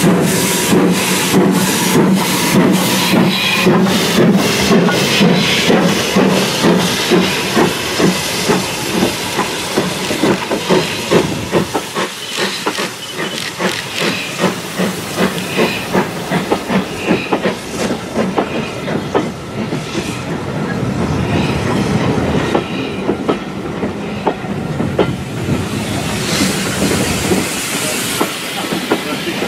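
A steam locomotive working hard as it pulls a passenger train away, its exhaust chuffs quickening from about two a second to about three, with steam hissing from the open cylinder drain cocks. The coaches then roll past with their wheels clicking over the rail joints.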